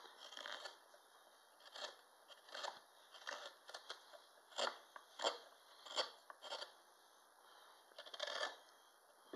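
Stubai bent gouge slicing short shavings out of a wooden spoon bowl, working down the grain: about a dozen crisp, scraping cuts at irregular intervals.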